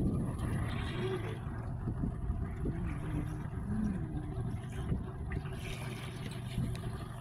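Steady low rumble of a small fishing boat under way over choppy sea, mixed with wind and water noise.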